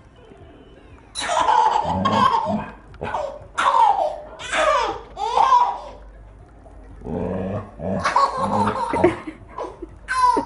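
Baby laughing in three long fits, the first starting about a second in.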